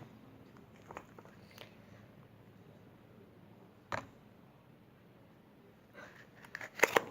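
Homemade glue-and-liquid-detergent slime, still sticky, worked by hand, giving faint wet squelches and clicks. There is a sharp click about 4 s in, and a quick run of louder squishes near the end.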